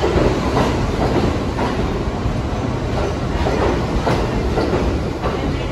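New York City subway train running through the station: a steady loud rumble of motors and wheels, with repeated clatter as the wheels pass over rail joints.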